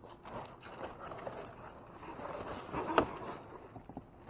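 Rummaging through trash in a dumpster: items and bags rustling and knocking against each other, with one sharp, louder knock about three seconds in.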